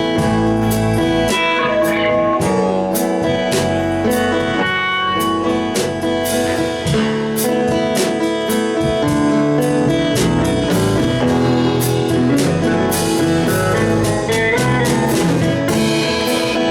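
A band playing live, led by guitar, with a drum beat keeping steady time.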